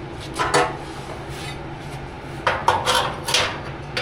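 Metal clanks and scraping as the sheet-metal bedside is worked by hand: a few irregular sharp strikes, loudest between about two and a half and three and a half seconds in, over a steady low hum.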